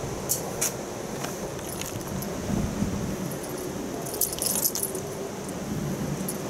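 Small metal bell on a cat teaser toy jingling in short bursts as a cat bats and tugs at it, with a few single jingles early and a longer flurry of jingling about four seconds in.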